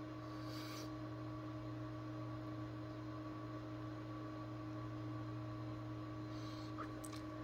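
Steady low electrical hum with a few fixed tones, and a brief faint rustle about half a second in and light clicks near the end.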